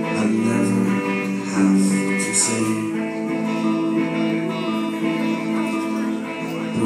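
Solo electric guitar played live, an instrumental passage of picked notes and strummed chords with no singing.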